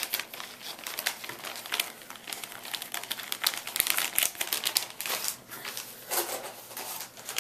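Clear plastic zip-top bag of soft plastic fishing worms crinkling irregularly as it is handled and pressed shut along its top.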